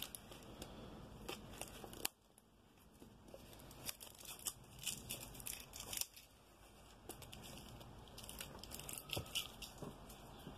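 Faint, irregular tearing and crinkling of packaging, with scattered small clicks and taps, as a rolled diamond-painting canvas is unwrapped and handled.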